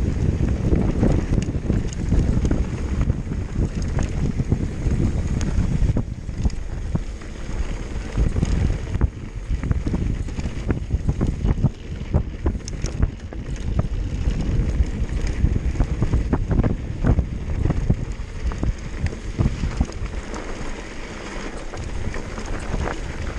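Wind buffeting the microphone as a downhill mountain bike descends at speed, with frequent sharp knocks and rattles from the bike over rough trail.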